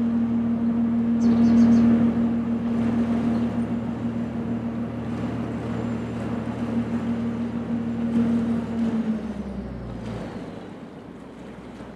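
Diesel engine of the inland cargo ship Mark Hardi II running with a steady low hum that drops away about nine seconds in.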